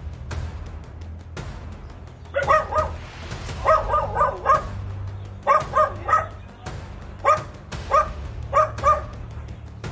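A dog barking in quick runs of three to five short, fairly high barks, then a few single barks near the end, over background music.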